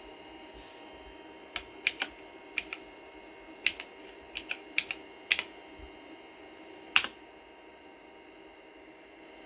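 Keys being typed on a Toshiba T3200's keyboard: a quick, uneven run of about a dozen key clicks, then one louder keystroke a second and a half later. A steady faint hum runs underneath.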